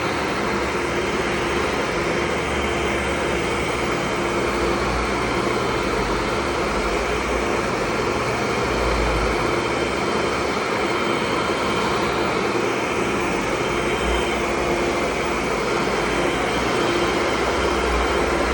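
Tennant commercial vacuum cleaner running steadily: an even rush of air with a constant motor whine.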